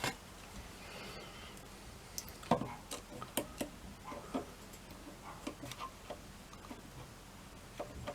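Scattered light clicks and taps of small metal tools and a freshly turned screw blank being handled and measured, over a faint steady hum.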